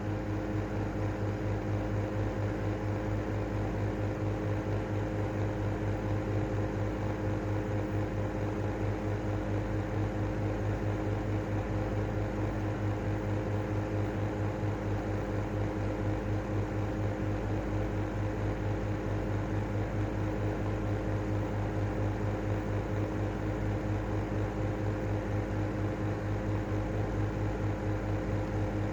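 Airflow-style 2.5 exhaust fan running with a steady whining noise over a low hum, with an even, fast flutter in its loudness.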